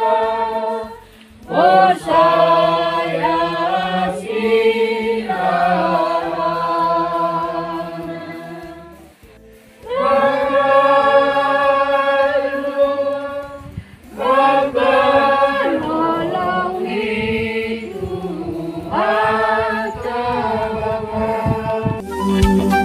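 Church congregation singing a hymn together in Simalungun, unaccompanied, in long held notes with short breaks for breath between phrases.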